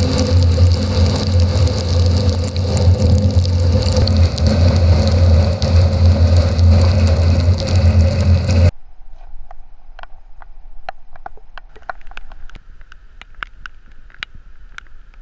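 Car driving along, heard from inside: a steady low drone of engine and road noise. About nine seconds in it cuts off abruptly to a much quieter stretch of faint hiss with scattered light ticks.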